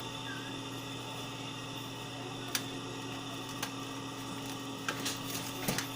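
A steady low electrical hum, with a few light clicks and taps scattered through it, more of them near the end.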